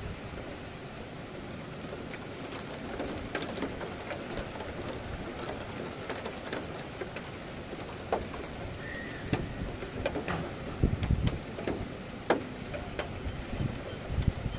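Steady rain, with scattered drops ticking sharply close to the microphone and a few low gusts of wind buffeting it in the second half.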